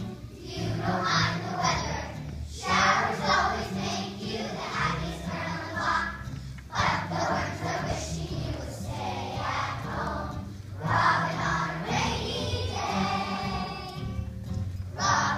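A choir of young children singing a song together in short phrases, over a steady musical accompaniment.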